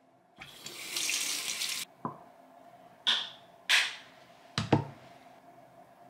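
Bathroom washbasin tap running for about a second and a half and then shut off with a click, followed by a few sharp splashes as water is scooped onto the face.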